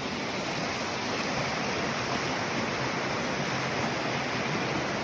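Waterfall water rushing steadily, an even unbroken noise, the stream running full with spring snowmelt.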